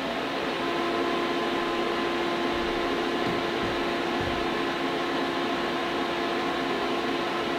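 12 kW low-frequency pure sine wave inverter running just after power-up in inverter mode with no load: a steady hum at one even pitch over a rushing noise.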